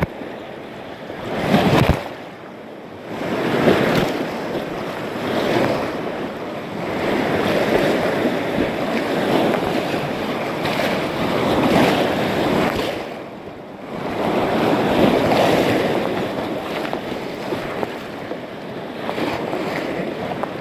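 Whitewater rapids rushing and splashing over the bow of an inflatable kayak as it runs through them. The rush swells and eases every few seconds, dropping briefly twice.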